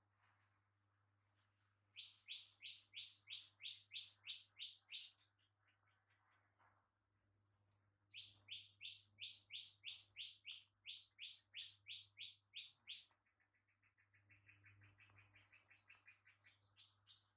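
A bird calling: a run of sharp, evenly repeated notes, about three a second, given twice, then a faster, softer trill of many short notes near the end. A faint steady low hum runs underneath.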